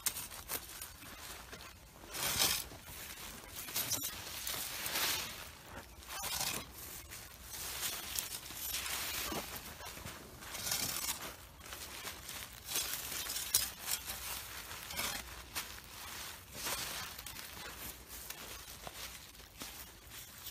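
Dry soil being poured from a metal scoop and pressed down by gloved hands around a pepper seedling on black plastic mulch film: irregular rustling, scraping and crinkling.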